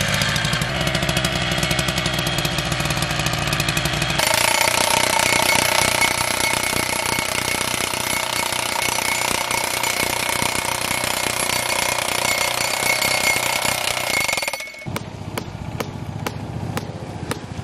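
Gas-powered post pounder hammering a PVC fence T-post into the ground, a fast, continuous mechanical pounding that turns higher and harsher about four seconds in. Near the end it cuts off suddenly, leaving a quieter low rumble with regular ticks.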